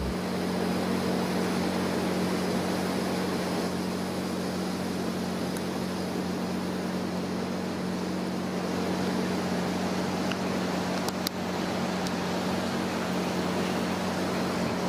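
Small portable generator running steadily: an even engine hum with a constant low tone under a steady hiss, with one brief tick about eleven seconds in.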